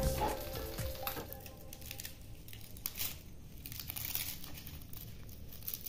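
Blackened, pan-roasted leaves being peeled and torn open by hand from a leaf-wrapped fish parcel: light crinkling, tearing and crackling, starting about a second in.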